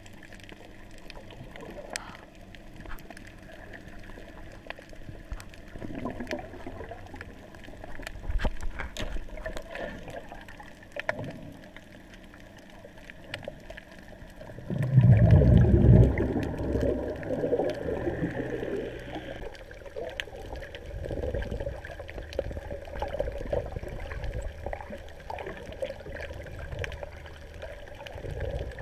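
Muffled underwater water movement and gurgling picked up through a camera's waterproof housing while snorkelling, with scattered faint clicks. There is a loud low rush of water about halfway through.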